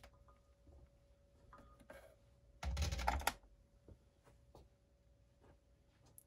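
Clicks and knocks of hands handling a TEAC 144 Portastudio mixer's cables, knobs and buttons, with one louder, rougher burst of handling noise a little under three seconds in. A faint steady tone runs underneath.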